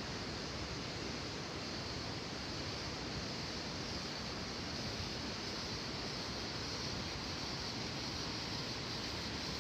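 Steady rushing of a waterfall, an even hiss of falling water with no breaks.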